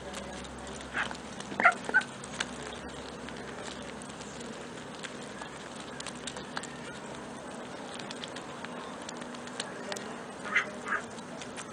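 Mallard ducks pecking bread off asphalt, their bills making scattered small taps and clicks on the ground, with short quacks twice about two seconds in and twice again near the end.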